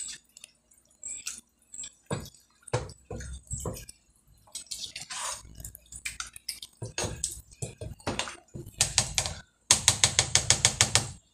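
A spoon stirring chunky tomato sauce and chicken pieces in a large pot: wet sloshing with clacks of the spoon against the pot, in uneven strokes that become a fast run near the end.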